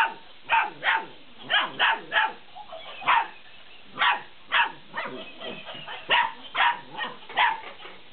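Belgian Malinois puppies barking in short, high-pitched yaps, about two a second in an uneven rhythm.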